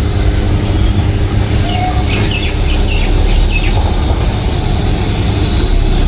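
A steady, loud low rumble, with a few short bird chirps about two to three and a half seconds in.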